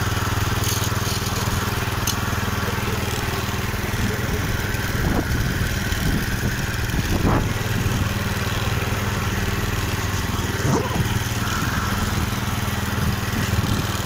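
A 7 hp single-cylinder petrol engine on an MTZ walk-behind tractor runs steadily under load as the machine drives in third gear, pushing snow with its front blade. There are a few brief louder surges along the way.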